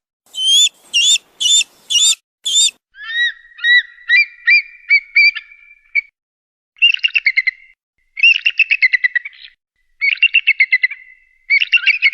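Kite calls: about five short, high, wavering cries in the first two and a half seconds, then a run of rising whistled notes, then several bursts of rapid trilled, whinnying calls.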